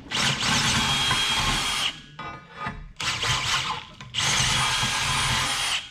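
Cordless drill driving a 5/8-inch reamer through a drilled hole in a steel bracket, cleaning up and slightly enlarging the hole. The drill runs twice for about two seconds each with a steady motor whine, with a brief blip in the pause between.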